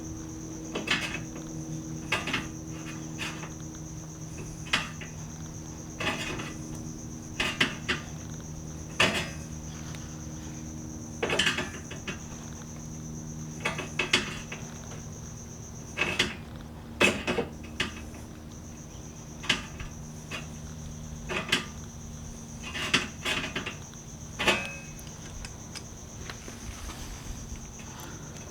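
Pliers clicking and clanking on a steel garage door rail as a bent spot in the track is levered back straight: irregular sharp metal knocks, about one every second or two, over a steady high-pitched trill.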